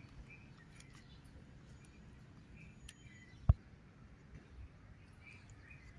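Quiet outdoor background with small bird chirps now and then, broken about halfway through by a single sharp thump.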